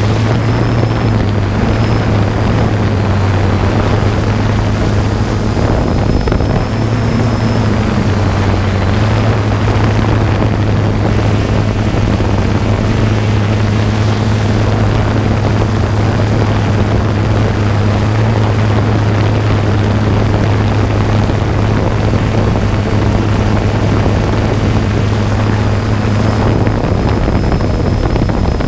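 Camera drone's propellers and motors humming steadily at close range, a strong low hum with a thin high whine above it that wavers slightly in pitch now and then.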